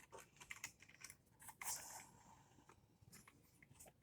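Faint small clicks and rustling from handling a plastic HO scale model boxcar, with a brief rustle a little before the middle.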